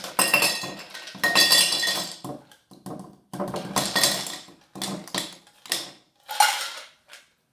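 Ice cubes clattering and clinking as they are poured from a stainless steel container into a glass beaker, rattling against metal and glass. It comes in a series of separate bursts, the later ones shorter.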